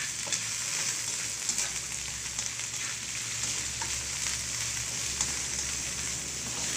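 Okra pieces with garlic sizzling in hot oil in a wok, a spatula stirring and tossing them with scattered light scrapes and clicks against the pan.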